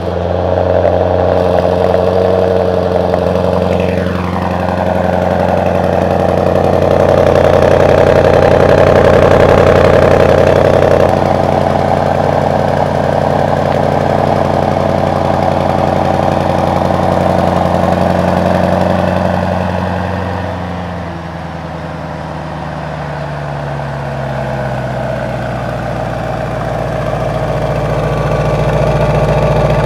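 Mercedes-AMG S63's twin-turbo V8 running at a steady fast idle. About two-thirds of the way through, the idle drops and the sound gets quieter, then the pitch slowly climbs again.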